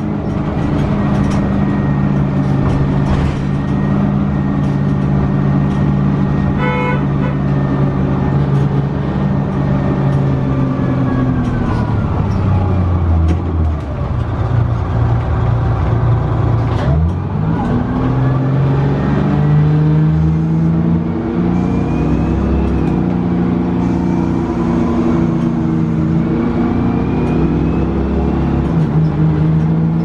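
Detroit Diesel 6V92TA two-stroke V6 of a 1990 Orion I transit bus, heard from inside the bus. It runs steadily under way, then its note drops after about ten seconds as the bus slows. A knock follows, and the pitch climbs again as the bus pulls away and accelerates.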